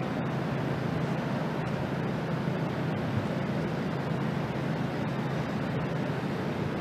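Steady outdoor background noise: a low, even rumble with a fainter hiss over it, with no voices.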